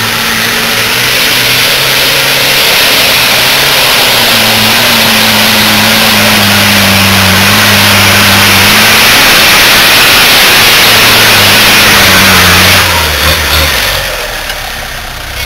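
Off-road 4x4's engine revving hard under load as it climbs a muddy hillside track and passes close by. The engine note falls and the sound drops away near the end as it eases off.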